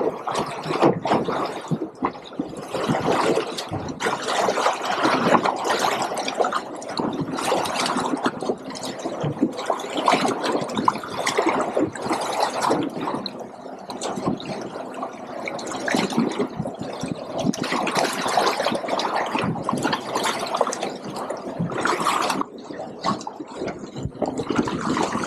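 Ocean waves slapping and splashing against the hull of a drifting fishing boat, an irregular, continuous sloshing.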